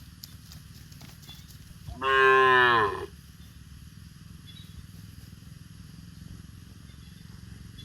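A cow moos once, about two seconds in: a single loud call of about a second that dips in pitch at the end. A steady low rumble runs underneath.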